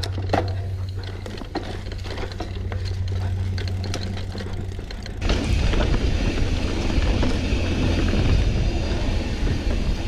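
Mountain bike riding along a dirt singletrack: tyres rolling and the bike rattling with short clicks and knocks over the rough trail. About five seconds in, the sound turns into a louder, steady rumble of wind on the microphone mixed with tyre noise.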